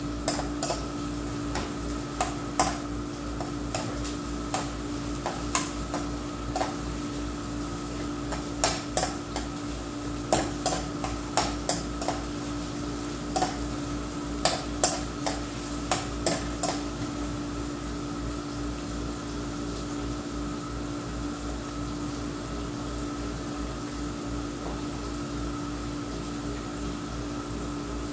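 Metal spatula scraping and clinking against a wok while stir-frying, in irregular strokes for roughly the first two-thirds, then stopping and leaving a steady background hum.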